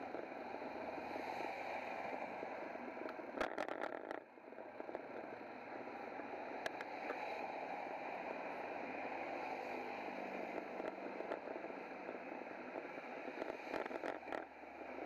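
Steady rushing of wind and tyre rolling noise on a camera mounted on a moving bicycle, with a few sharp clicks and rattles about three and a half seconds in and again near the end.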